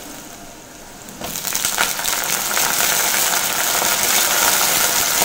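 Washed, still-wet crushed kandankathiri (wild brinjal) berries dropped into hot sesame oil in a clay kadai. A loud, steady frying sizzle starts suddenly about a second in.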